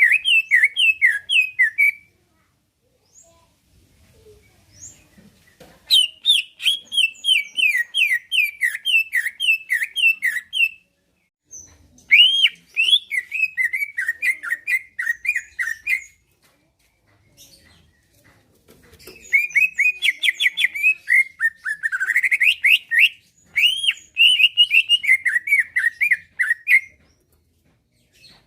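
Green leafbird (cucak ijo) singing in its lively competition style: five loud bursts of rapid chattering notes, each a fast run of quick downward-sweeping notes, separated by short pauses.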